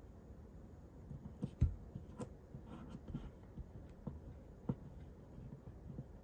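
Faint hand-handling sounds of a double-sided foam tape pad being peeled from its liner and pressed down with the fingertips: scattered light taps and clicks, the sharpest about a second and a half in.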